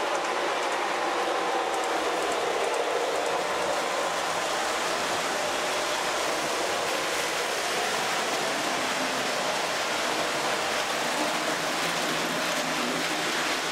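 Three-rail O gauge toy trains running on a Lionel layout: a steady rolling rumble and hiss of metal wheels on steel track.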